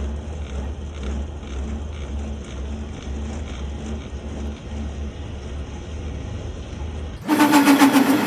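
A machine running with a steady low hum. About seven seconds in it gives way suddenly to a louder machine sound with a strong steady tone, which stops abruptly.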